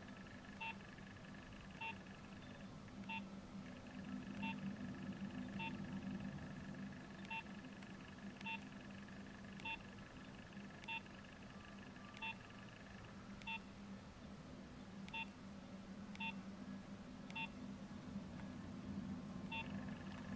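Nokia 6220 mobile phone giving short electronic beeps, each a brief two-pitch blip, about one every second or so at slightly uneven spacing, over a faint steady low hum.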